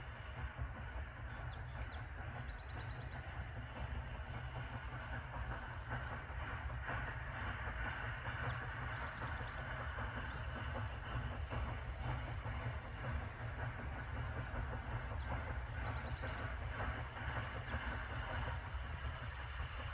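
East Broad Top 3-foot-gauge freight train rolling past, a steady rumble of wheels on the rails with light clatter.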